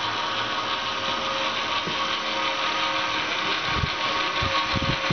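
DC gear motor of a spit rotisserie running, turning the spit through a V-belt and transfer gearbox: a steady whir with a steady tone in it. A few low thumps come about four seconds in.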